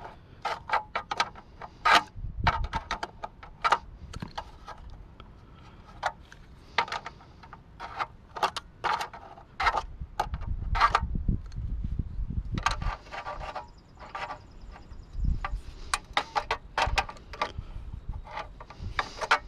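Irregular metallic clinks, taps and knocks from hand tools and loose metal parts as a water cooler is dismantled for scrap, with a few duller thuds among them.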